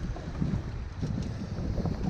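Gusty wind noise on the microphone, with choppy water slapping against a small boat's hull.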